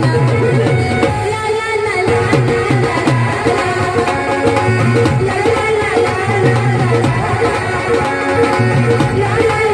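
Live orchestra music for a Marathi folk song: a melody over a steady, evenly repeating drum rhythm.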